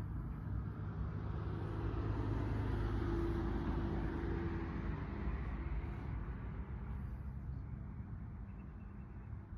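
A vehicle passing by: a low rumble with a hiss that swells to a peak about three seconds in and fades toward the end.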